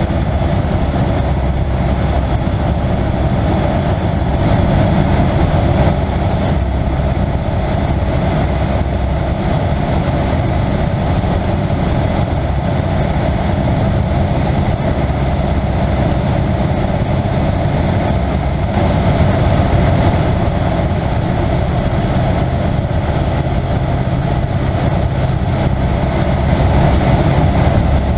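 Piper J3C Cub's Continental flat-four engine and propeller running steadily in flight, heard from inside the cockpit.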